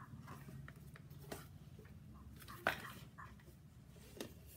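Small rigid cardboard gift box handled and opened by hand: a few light knocks and scrapes, the sharpest a little before three seconds in, over a low steady hum.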